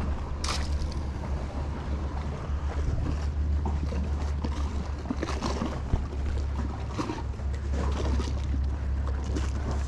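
Wind rumbling over the microphone, with a few scattered soft knocks from handling the camera.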